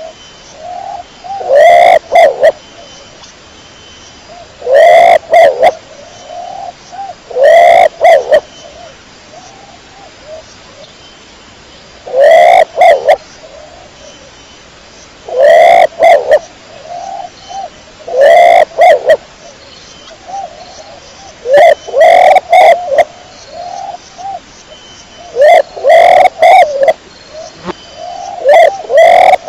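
Domestic pigeon cooing in repeated phrases, nine of them about every three seconds with short pauses between. Each phrase peaks so loud that it clips and crackles.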